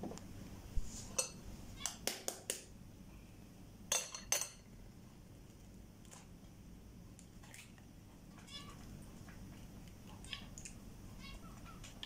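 Light clicks and knocks as eggs and bowls are handled on the counter, with two sharper ones about four seconds in. Through the second half a pet bird calls in short, rippling chirps.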